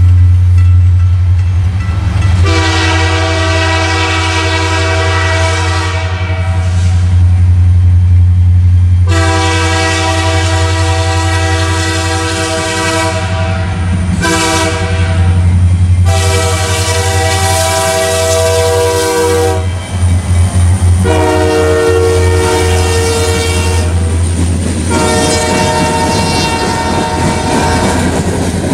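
Freight locomotive's Nathan K3LA air horn blowing the grade-crossing signal: long, long, short, long, followed by two more long blasts. A steady low rumble from the passing train runs underneath.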